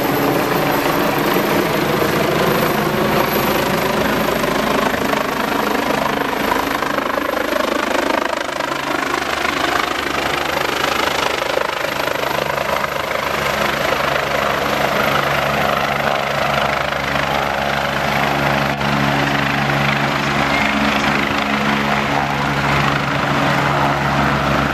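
Agusta A109 twin-engine helicopter flying low overhead as it comes in to land, its rotor and turbines making a loud, steady noise.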